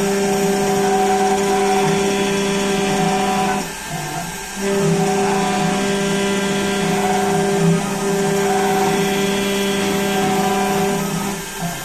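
CNC engraving machine running with a steady pitched motor hum and whine. The hum stops briefly about four seconds in and again near the end before resuming.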